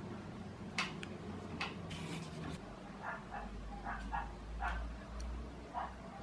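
A dog barking or yipping in short repeated calls, about two a second, starting about three seconds in. A few sharp clicks of paper handling come before them.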